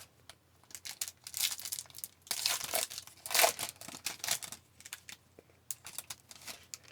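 A hockey card pack's wrapper being torn open and crinkled by hand, in irregular bursts of rustling and tearing.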